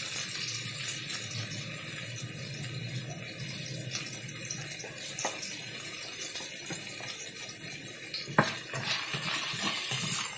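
Chicken strips and garlic sizzling in oil in a wok as the garlic fries until fragrant, a steady hiss. There is a sharp knock about eight seconds in, and near the end the wok spatula starts stirring.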